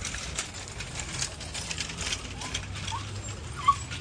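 Scattered sharp clicks and taps, with a dog's short high yip near the end.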